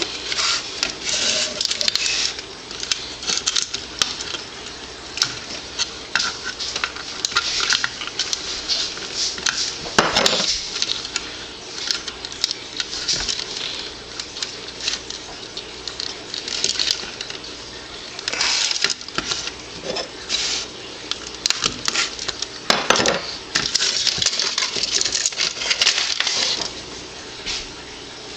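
Small metal and plastic parts of an old alarm clock clinking, clicking and scraping as it is handled and taken apart by hand, with a few louder knocks along the way.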